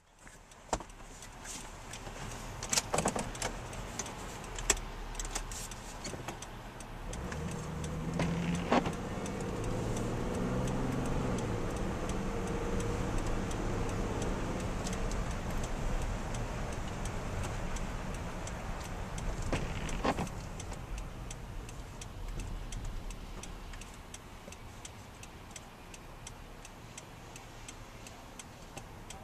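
Car interior while driving on wet streets in the rain: engine and tyre noise, with irregular sharp taps of raindrops on the windshield and roof. The engine note rises and falls as the car pulls away about seven seconds in, and the noise grows louder and then eases off toward the end.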